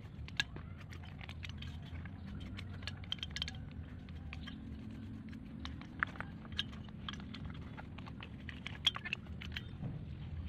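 Scattered light metallic clicks and clinks of a wrench and loose parts being handled while a brush cutter's two-stroke engine is taken apart, over a steady low hum.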